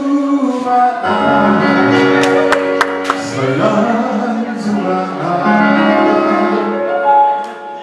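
A man singing solo into a handheld microphone, his voice amplified through a PA, holding long sung notes.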